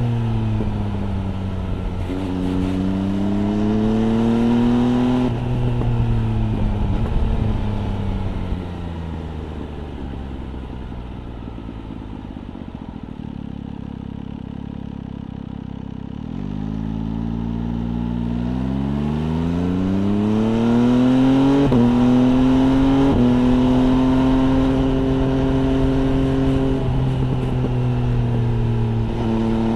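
MV Agusta Brutale 800 RR's three-cylinder engine through an FF by Fresco aftermarket exhaust, heard from the saddle: it pulls up through the gears, each rise in pitch cut by a drop at the gear change. Near the middle it falls back to a lower, quieter running for several seconds, then accelerates away through the gears again.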